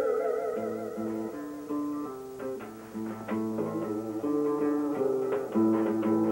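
Guitars playing an instrumental piece together: a melody of plucked single notes over lower notes, with a wavering held note dying away at the start.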